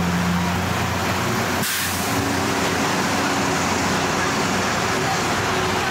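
Engine and road noise heard from aboard a moving vehicle: a steady rumble with a low hum in the first couple of seconds and a dense rushing noise throughout.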